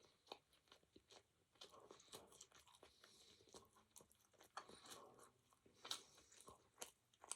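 A person chewing and biting crunchy food close to the microphone: faint, irregular crunches and mouth clicks.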